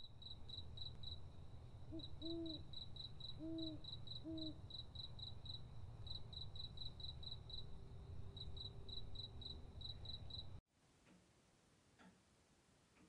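Night ambience of crickets chirping in a steady pulsing rhythm over a low rumble, with an owl hooting three times in short low hoots a few seconds in. About ten and a half seconds in the ambience cuts off and a clock ticks softly about once a second.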